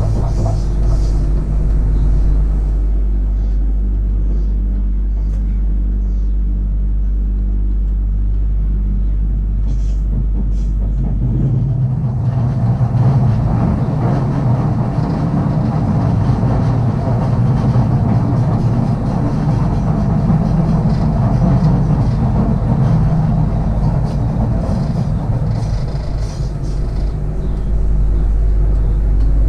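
Sydney Trains Millennium electric train running along the track, heard from the driver's cab: a steady low hum under the rumble of wheels on the rails. About twelve seconds in the hum drops away and the rumble grows louder, until the hum returns near the end.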